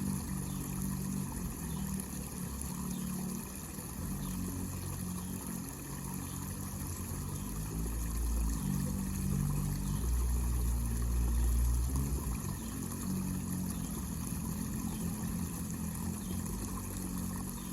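Water from a small homemade fountain falling and trickling steadily into its basin, over a low rumble that swells for a few seconds around the middle.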